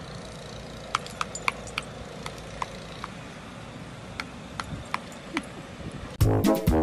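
Sparse, irregular sharp clicks with a slight metallic ring over a quiet hiss. Near the end, loud brass jazz music with trombone and trumpet starts abruptly.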